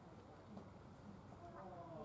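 Near silence: faint room tone with distant, indistinct murmurs.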